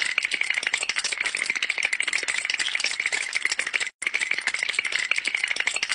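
A white short-haired dog's teeth chattering from the cold: a fast, dense rattle of clicks, broken once by a very short gap about four seconds in.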